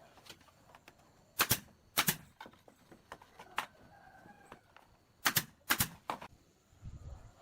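Sharp knocks on wood, five in all: two about a second and a half in, then three more about five seconds in.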